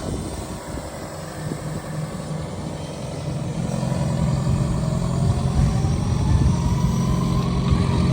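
A farm tractor's engine running, getting louder about halfway through, with a faint whine that rises steadily in pitch over the second half.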